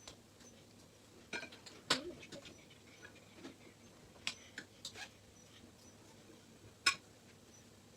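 Serving utensils clinking and knocking against plates and dishes as food is dished out: scattered sharp clinks, the loudest about two seconds and about seven seconds in.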